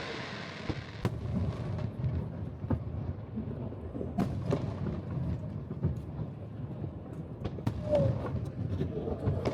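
Aerial fireworks bursting in an irregular series of sharp bangs and crackles over a low rolling rumble. The loudest bang comes about eight seconds in.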